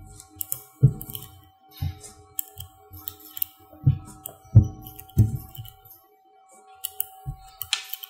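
Small neodymium magnet balls clicking irregularly as they snap into place one by one, mixed with dull knocks from fingers handling the ball sculpture.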